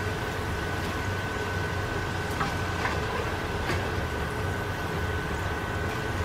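Hot cooking oil sizzling steadily as a batch of seasoned fries fries in it, with a few faint clicks of a metal slotted spoon against the pan.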